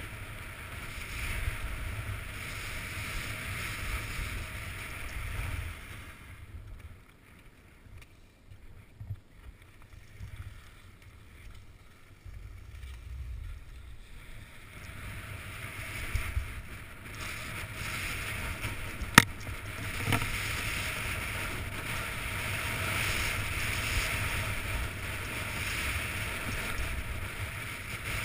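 Skis sliding and scraping on groomed snow, with wind buffeting the microphone of a helmet-mounted action camera. The sound drops off for several seconds in the middle as the skier slows, then builds again. There is one sharp click about 19 seconds in.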